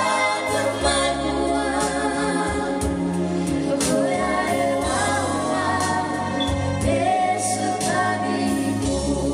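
Background music: a slow song sung by several voices in harmony over held bass notes.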